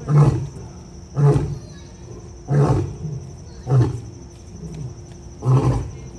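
Male lion roaring in a series of five deep grunting calls, spaced about one to two seconds apart.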